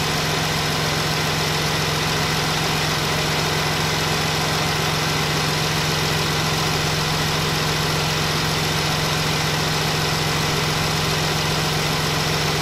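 Dodge Charger engine idling steadily with a constant low hum, heard at the open engine bay.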